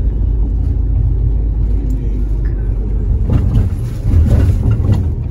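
Low, steady rumble of a car driving, heard from inside the cabin. A louder, rougher stretch of noise comes about three seconds in.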